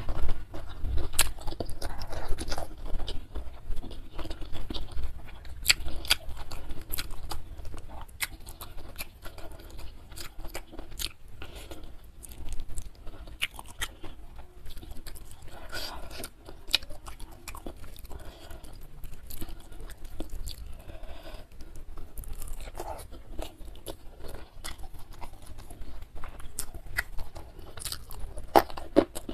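Close-miked mukbang eating: chewing and crunching of fried patin catfish with rice and sambal, eaten by hand, with many sharp wet mouth clicks throughout.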